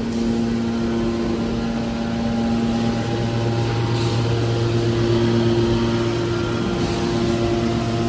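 Scrap aluminium hydraulic baler's power unit running: electric motors driving the hydraulic pumps, a steady hum with several tones. About three seconds in the hum shifts lower as one higher tone drops out.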